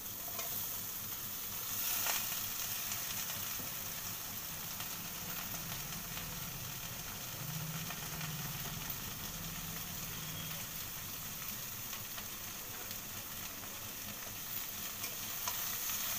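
Chopped banana flower sizzling in hot oil in a wok as it is tipped in from a bowl, with a steady hiss that grows louder about two seconds in.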